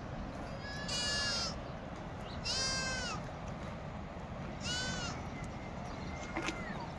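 A goat bleating three times, each call about half a second long with a quavering pitch. A fainter call and a click follow near the end.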